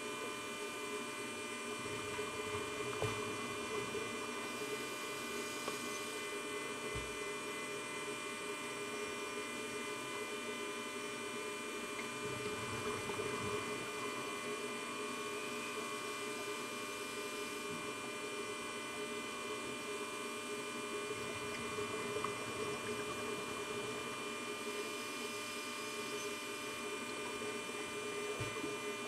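A steady electrical hum made of several fixed whining tones, like a small motor or electronics running nonstop, with a few faint low thumps.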